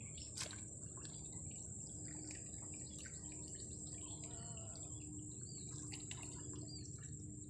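Faint outdoor background: a steady high-pitched whine under low background noise, with a few soft scattered chirps like small birds.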